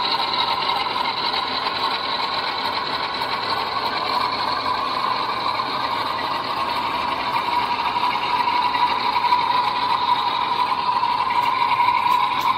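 OO gauge model diesel train running on the layout: the steady engine sound of a sound-fitted model locomotive played through its small speaker, mixed with the running of the model's motor and wheels on the track, a little louder in the second half.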